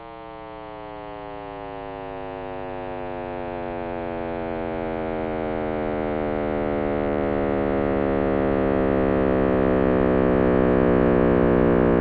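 Computer-made sonification of the Big Bang, built from Planck cosmic microwave background data: a deep drone of many stacked tones that slowly falls in pitch and grows steadily louder.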